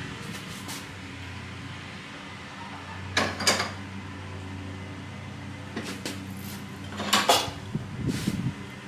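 Workbench handling noise: clatters and knocks of tools and small metal parts in two short bursts, about three seconds in and about seven seconds in, with a few lighter clicks between them. A steady low hum runs underneath.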